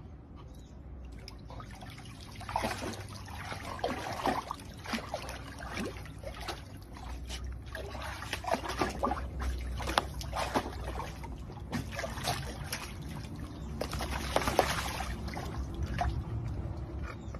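Water splashing and sloshing in a shallow collapsible pet pool as a dog paws and stamps in it, in an irregular run of splashes with louder flurries near the start and near the end.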